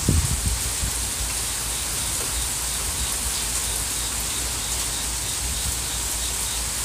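Steady rain falling in a thunderstorm, an even hiss throughout, with a brief low rumble right at the start.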